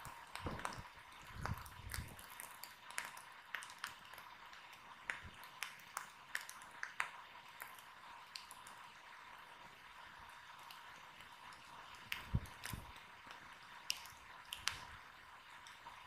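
Fire crackling: irregular sharp pops and snaps, with a few low thumps in the first two seconds and again about twelve seconds in.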